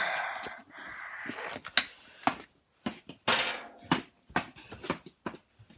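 Scattered knocks, taps and rustling of objects being handled and moved about in a garage.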